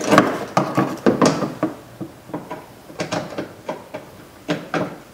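Irregular clicks and knocks as a socket on an extension is worked up behind a car's plastic inner fender liner to reach a 10 mm bolt.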